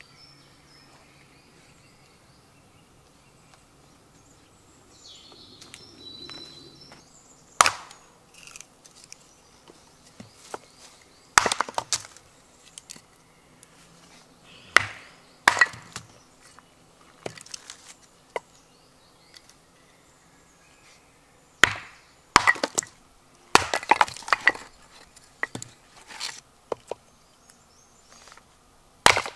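Firewood being split into kindling with a sheath knife on a wooden chopping stump: sharp wooden knocks and cracks, about a dozen at uneven intervals, some in quick clusters, starting several seconds in.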